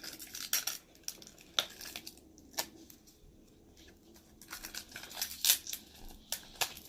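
Plastic toy packaging and small plastic accessories being handled and pulled apart: scattered light clicks and rustles, with a sharper click about five and a half seconds in.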